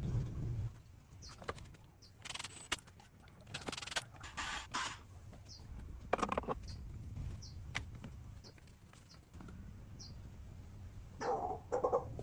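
Scattered clinks, knocks and short scrapes of metal parts and tools being handled, with short bird chirps repeating every second or so.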